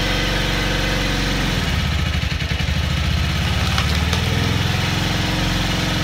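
Small gas engine of a hydraulic log splitter running steadily. About a second and a half in, its note drops and turns rougher as it takes the load of the ram pushing into a log, then settles again near the end.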